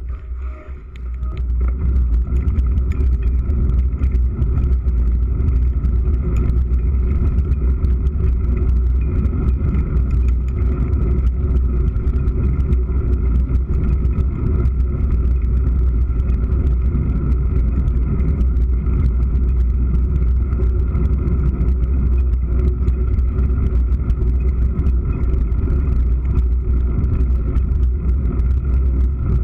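Mountain bike riding fast on a dirt forest trail, recorded by a GoPro camera: a steady, deep rumble of wind and tyre noise with many small knocks and rattles from bumps in the track. Briefly quieter about a second in, then steady.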